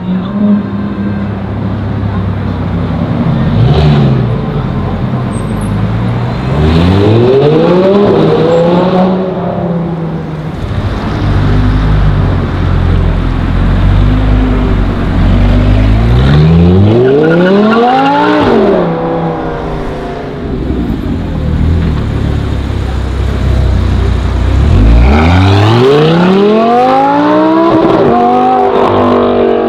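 Audi R8 V10 Plus with a Per4mance aftermarket exhaust, its naturally aspirated V10 accelerating hard three times, about a quarter of the way in, halfway and near the end. Each time the pitch climbs steeply to a peak and then drops, with a loud low engine drone between the runs.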